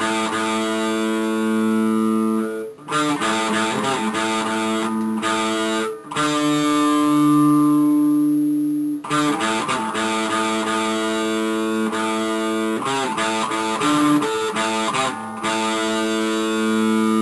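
Intro music played on a guitar: plucked chords left to ring, with brief breaks between phrases.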